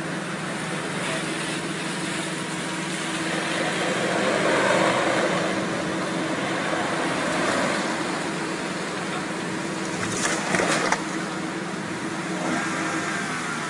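Car on the road: steady engine and road noise that swells around the middle, with a short burst of sharp knocks about ten seconds in.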